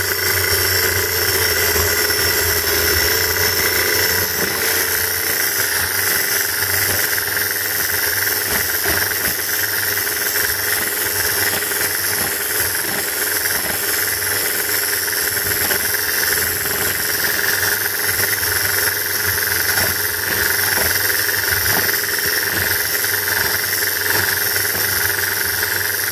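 Electric hand mixer running steadily at a loud, even pitch, its two beaters whipping thin liquid ingredients (buttermilk and milk) in a bowl.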